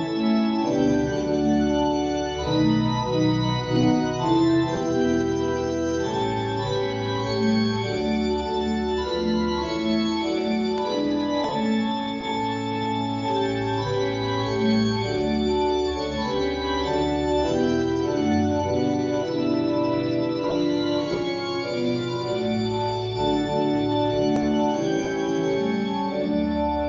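Organ music: slow, held chords over a deep bass line, played without singing.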